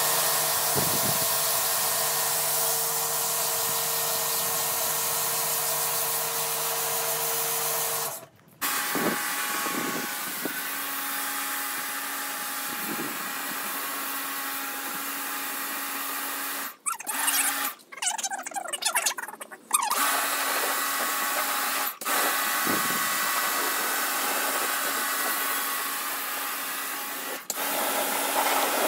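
Kärcher pressure washer running, its motor and pump giving a steady hum under the hiss of the high-pressure water jet blasting dirt off concrete and a rubber doormat. The sound breaks off a few times: briefly about eight seconds in, and in a choppy stretch after about seventeen seconds.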